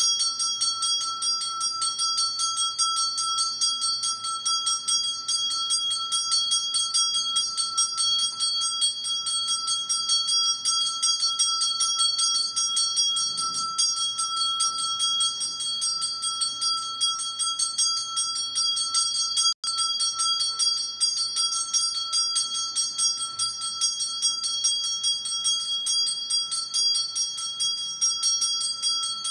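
Small brass puja hand bell (ghanta) rung continuously during worship, a fast, even ringing with a clear high tone that drops out for an instant a little past halfway.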